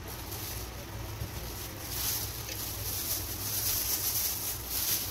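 Plastic grocery bag and wrapping rustling and crinkling, louder from about two seconds in, over a steady low hum.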